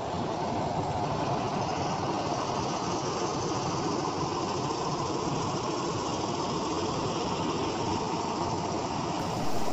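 Diesel bus engine idling steadily.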